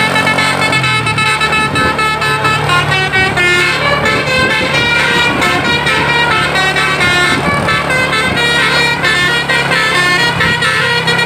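A tour bus's basuri telolet horn playing a loud melody, a fast run of changing multi-tone notes, over the bus's engine running steadily.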